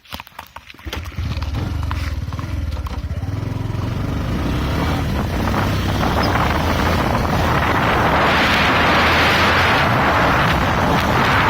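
Wind buffeting the microphone in a steady low rumble that starts about a second in and grows louder and hissier through the second half.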